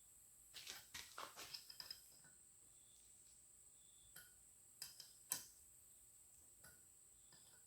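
Faint scattered clicks and light taps: a quick cluster about a second in and a single sharper click about five seconds in, over a faint steady high-pitched whine.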